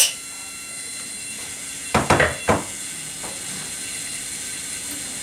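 A plastic RC radio transmitter handled on a wooden workbench: a sharp click at the start, then about two seconds in a quick clatter of three or four knocks as it is set down on the wood.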